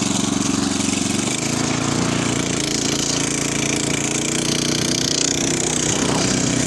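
Motocultor's small air-cooled single-cylinder petrol engine running steadily while the machine drives along the road, its pitch shifting about a second and a half in.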